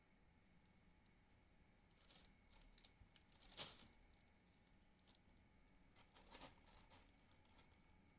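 Faint crinkling and rustling of a plastic bag as a cat noses into it, in a few short spells, the loudest about three and a half seconds in.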